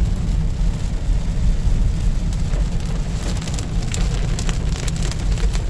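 Heavy rain pouring down: a steady hiss over a deep rumble, with many sharp taps of drops from about three seconds in.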